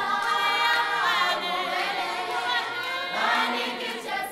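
Choir singing, with long held notes that waver in pitch.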